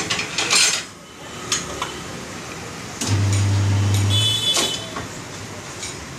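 Automatic tyre-changing machine working a motorcycle tyre: sharp metal clanks of tools against the wheel rim, then the machine's electric motor hums steadily for about a second and a half as it turns the wheel, followed by a few lighter metal knocks.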